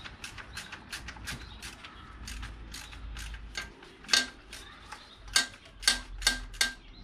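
Socket ratchet on 3/8-inch drive clicking as a 10 mm bolt is undone, a steady run of about three or four clicks a second. Near the end come five louder, sharper clicks.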